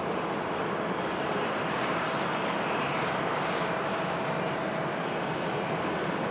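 Jet engines of a landing Boeing 787-8 Dreamliner at low approach power, a steady rushing roar with a faint steady whine through it as the airliner touches down.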